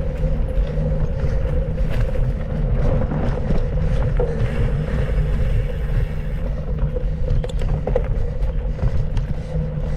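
Mountain bike being ridden over a trail: a steady rumble of tyres and wind on the microphone, with scattered knocks and rattles from the bike.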